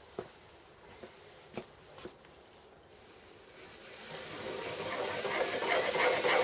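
A few light metallic clicks, then a workshop machine's motor starting and spinning up, its hiss growing steadily louder with a faint rising whine.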